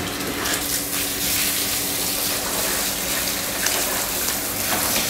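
Water gushing from a garden hose and splashing into a plastic basin and onto a wet floor, with a steady low hum underneath.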